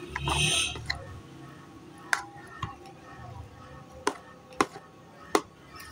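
Silicone pastry brush spreading oil over soft dough in a plastic container: a short wet swishing scrape about a quarter second in, then a few light clicks and taps of the brush against the plastic, over faint background music.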